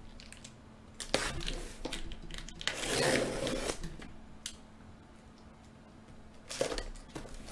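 Cardboard rubbing and scraping as sealed card boxes are slid against each other and the cardboard shipping case. There are a couple of sharp knocks about a second in, a longer scraping rustle around three seconds in, and a shorter one near the end.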